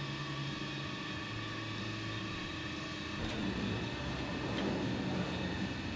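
A steady low mechanical hum, a little louder from about three seconds in, with a few faint clicks.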